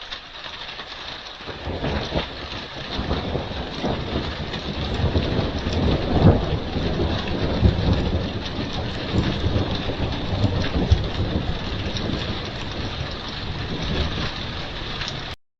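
Heavy rain falling, picked up by a security camera's microphone, with thunder rumbling through it, loudest about six seconds in. The rain grows louder over the first two seconds and cuts off abruptly near the end.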